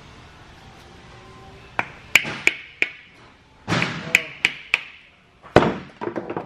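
About a dozen sharp metallic taps that ring briefly, in irregular groups starting about two seconds in: a hammer and flathead screwdriver tapping the bent lock-washer tab straight on the oil-pump sprocket nut of a Mazda 13B rotary engine, so the nut can be undone.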